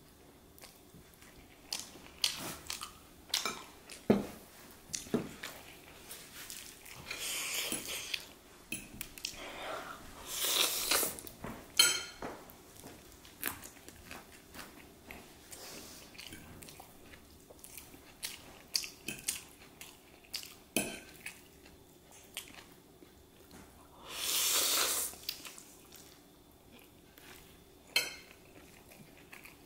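Close-miked eating: biting and chewing meat off a fried chicken leg, with sharp clicks and knocks of cutlery and dishes. A few louder, longer rushing sounds of about a second each come in between.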